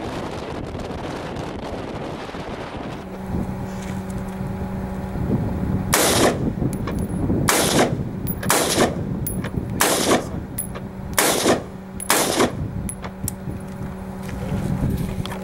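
Wind on the microphone for the first few seconds, then a rifle firing single shots: six loud shots about a second apart, from about six seconds in until near the end.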